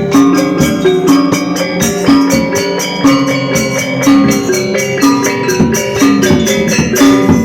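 Balinese gamelan playing: bronze metallophones struck in fast, interlocking runs of ringing notes over drumming.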